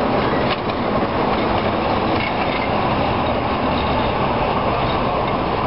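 CFR diesel-electric locomotive running past at close range, a steady loud mix of engine noise and wheels on the rails.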